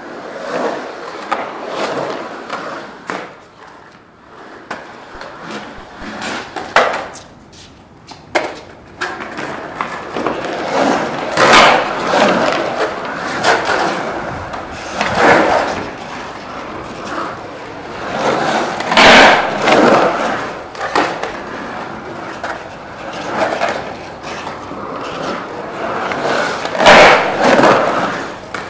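Skateboard wheels rolling and carving around the walls of an empty concrete pool, the rumble swelling loud several times as the board runs up the walls, with a couple of sharp clacks early on the run.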